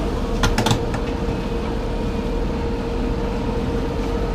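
Forklift engine running steadily with a constant hum, with a few quick metallic clanks about half a second in.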